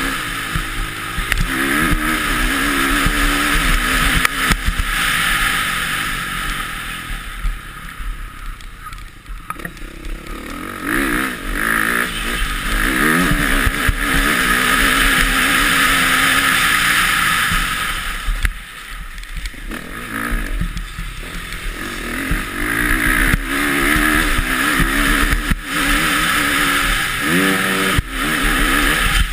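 Motocross bike engine heard from on board while racing: revving hard and easing off, with the throttle backed off briefly twice, and a rising rev sweep near the end.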